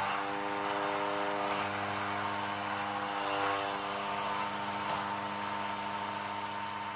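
Featherweight combat robot's belt-driven spinning weapon running at a steady speed: a steady hum holding one pitch, with the robot's drive and lifting arm working at the same time.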